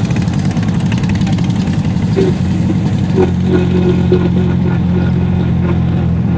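A vehicle's engine running with a low, steady hum, heard from inside the vehicle in slow rainy traffic. About three seconds in it settles into an even idle.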